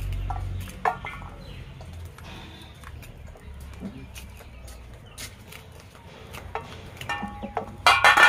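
Chickens clucking, with a louder call just before the end, over light clinks from a steel bowl being handled.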